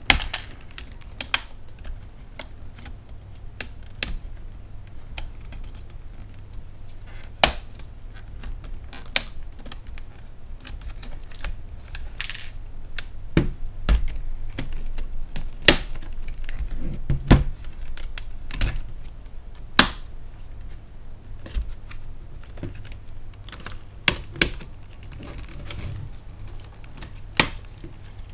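Plastic bottom cover of an Asus Eee T91 netbook being pried off with a small flathead screwdriver: irregular sharp clicks and snaps as the case clips let go one by one, over a steady low hum.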